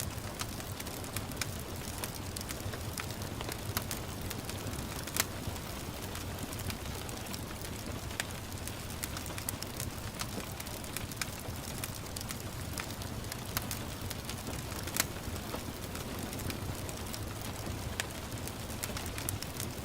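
Wood fire crackling with irregular sharp pops, two louder ones about 5 and 15 seconds in, over a steady hiss of gentle rain.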